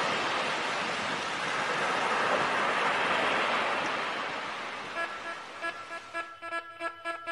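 Sea waves breaking on a beach, a rushing surf that swells and fades. About five seconds in, music with held notes comes in over it.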